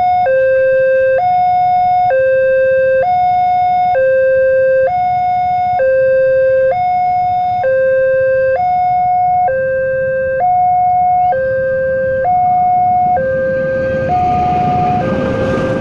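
Railway level-crossing alarm sounding from its loudspeaker: an electronic two-tone call alternating between a lower and a higher tone, each held about a second, warning of an oncoming train. Near the end a rushing noise rises underneath as the train arrives.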